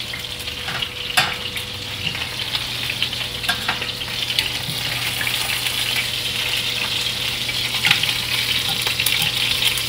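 Lamb chops sizzling steadily in hot oil in a cast iron frying pan, with a few sharp clicks of metal tongs against the pan as the chops are moved.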